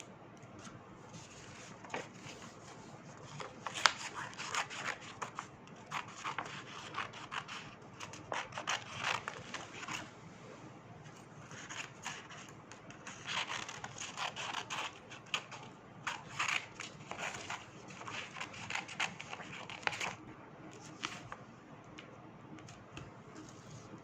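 Craft materials being handled and worked by hand: irregular scraping, rubbing and clicking in bursts with short pauses, with one sharp click about four seconds in.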